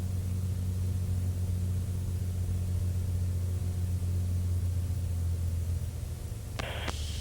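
Cessna 210 Centurion's piston engine running with a steady low drone, heard inside the cabin. A burst of radio static hiss cuts in near the end.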